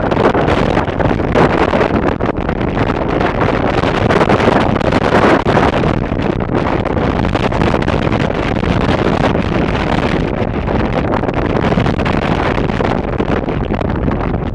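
Wind buffeting the camera microphone: a loud, steady rushing noise, a little stronger in the first half.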